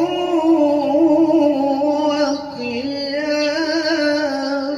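A male qari recites the Quran in the melodic tilawah style through a microphone, drawing out one long, ornamented note with a wavering pitch.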